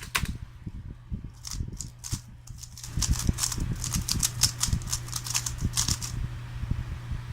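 3x3 Rubik's cube (speedcube) turned in quick finger-trick sequences: rapid runs of plastic clicks as the layers snap round, executing the last-layer OLL and PLL algorithms. The clicking is densest in the middle and stops about six seconds in.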